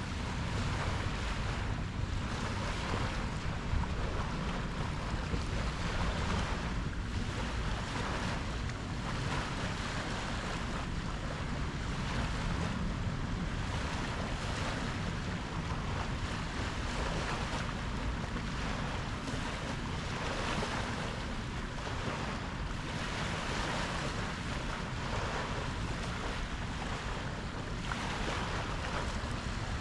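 Ocean waves washing and surging without a break, swelling and easing every second or two, with wind rumbling on the microphone.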